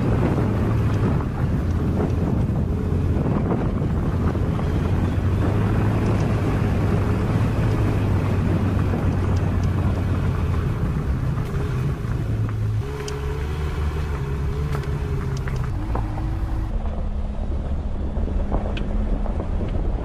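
SsangYong Rexton SUV driving slowly on a dirt forest track: steady engine hum with tyre and road noise and some wind on the microphone. The engine note shifts about two-thirds of the way through.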